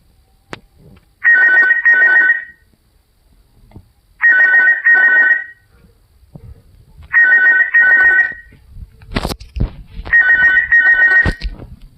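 Icemobile mobile phone playing an old-style telephone ring tone through its speaker: a double ring of two steady high tones, repeating about every three seconds, four times. There are a couple of sharp thumps near the end.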